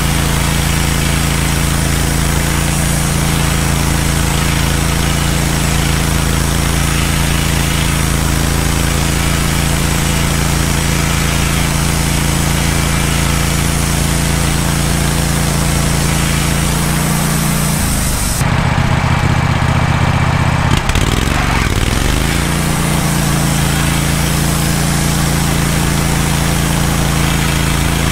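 Wood-Mizer LT15 band sawmill running, its engine held steady while the band blade saws through a cedar log. About two-thirds of the way through, the engine note drops for a few seconds, then climbs back.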